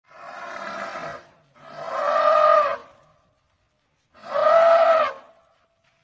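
African elephant trumpeting: three calls of about a second each, the first quieter than the next two, with a short gap before the second and a longer one before the third.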